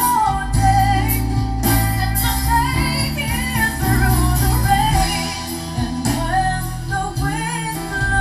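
Female singer performing a pop ballad live with a small band, her voice sliding up and down through ornamented runs over acoustic guitar and keyboard accompaniment.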